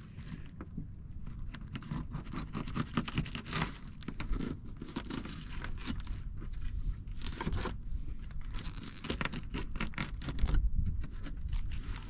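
Knife cutting and scraping through a Sergeant Baker fish on a plastic cooler lid, the flesh tearing as the fillet is worked free, in an uneven run of small scrapes and clicks.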